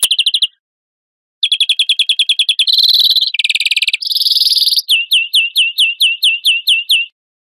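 European greenfinch song. A short trill right at the start is followed by a pause, then a long phrase of fast trills, two harsh wheezy notes, and a run of loud downslurred notes at about four a second.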